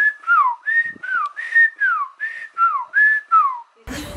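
Human whistling: a quick two-part phrase, a held high note followed by a falling glide, repeated about seven times in a steady rhythm, breaking off abruptly near the end.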